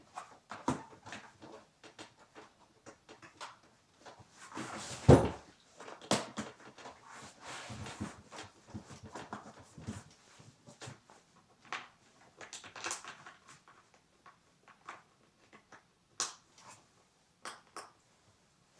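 Scattered clicks, knocks and rustling of objects being handled, with one loud thump about five seconds in.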